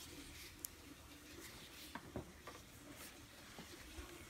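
Faint handling noises: a few light clicks and rustles of plastic parts, the hose adapter fittings, being handled.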